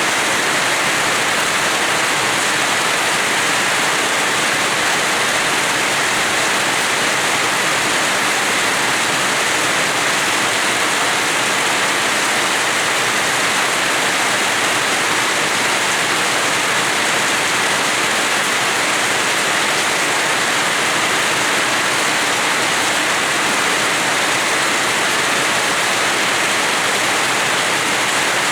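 Steady, heavy rain falling on a house yard, a dense even hiss with no single drops or thunder standing out.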